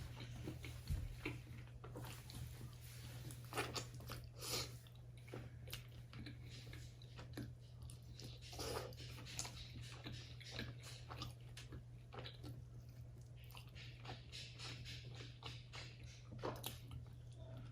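Faint close-up eating sounds: chewing and biting with scattered soft clicks and crunches as goto rice porridge and tofu are eaten, over a steady low hum.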